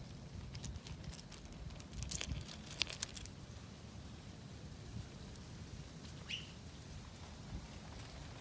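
Damaged succulent leaves snapped off by hand with crisp clicks: a run of rustling handling sounds around two to three seconds in, peaking in two sharp snaps close together. A short chirp sounds about six seconds in.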